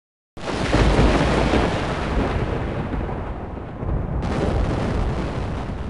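Thunder rumbling, starting suddenly out of silence and slowly dying away, with a second, brighter burst about four seconds in.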